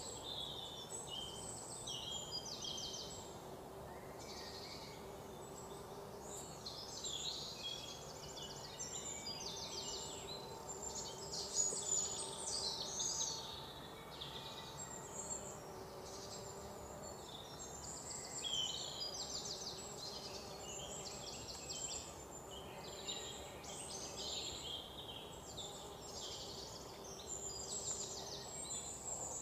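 Outdoor ambience of many small birds chirping and trilling, high-pitched and overlapping, with one louder call about twelve seconds in. A faint steady hum sits underneath.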